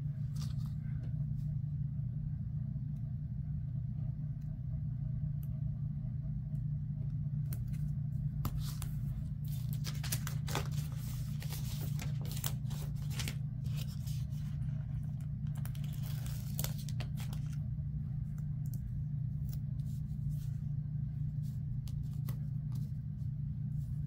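Paper sticker sheets rustling and crackling as stickers are handled and peeled, in two spells near the middle, over a steady low hum.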